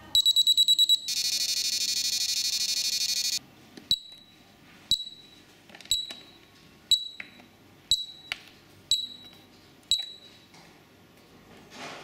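Bomb-shaped game alarm clock's buzzer setting off: a rapid string of high beeps for about a second as the countdown hits zero, then a harsh continuous buzz for about two seconds, the 'explosion' signal. After a short pause the countdown restarts with one short high beep each second, with light clicks from the wires being handled.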